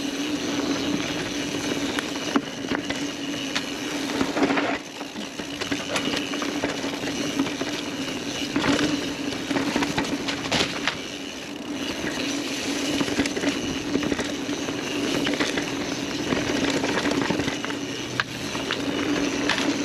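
Mountain bike rolling down a dirt woodland trail: a steady tyre rumble on the packed earth, with the bike clattering and knocking over roots and bumps several times, and wind noise on the camera's microphone.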